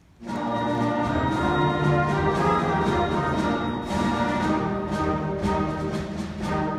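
Beginner concert band starting to play a march. The whole band comes in at once about a quarter second in and holds full, sustained chords.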